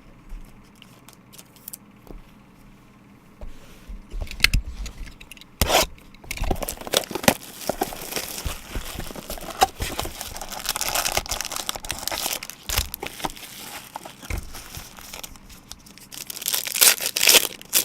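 Trading-card packaging being torn open and crinkled by hand: a few small clicks at first, then from about four seconds in a long stretch of tearing and crinkling with sharp snaps, loudest near the end.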